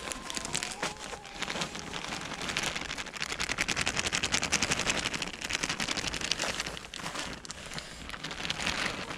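Dry shelled corn shaken out of a plastic bag, the kernels pattering onto snow in a dense run of tiny clicks, busiest in the middle and thinning toward the end.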